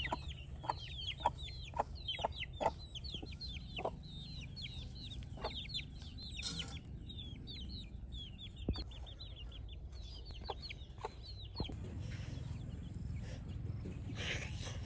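Chickens calling: many short, high, falling peeps and clucks in quick succession, thinning out in the second half, with a few sharp clicks among them.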